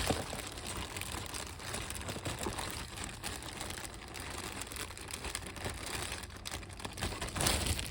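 Rustling and small clicks of plastic packaging and toy parts being handled, a little louder near the end.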